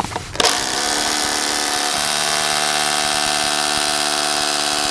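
Bosch corded hammer drill, set to hammer, with a 7mm masonry bit boring through a timber wall plate toward the brick behind. The motor starts about half a second in, winds up briefly, then runs steadily at a loud, even pitch.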